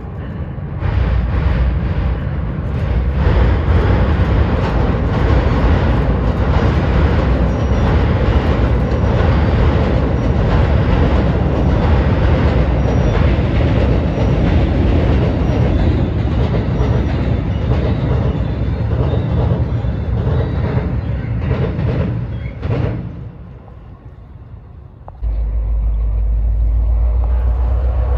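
A train crossing a steel truss railroad bridge: a loud, steady rumble of wheels on the rails with repeated clacks over the rail joints. It drops away near the end, and a steady low rumble starts suddenly a few seconds before the end.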